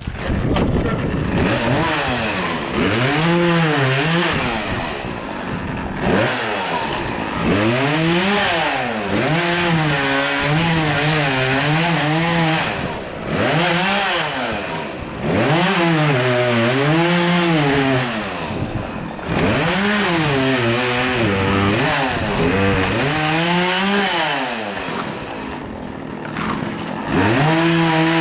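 Gasoline chainsaw starting up, then being revved: its engine pitch climbs and falls back roughly every two to four seconds, about eight times.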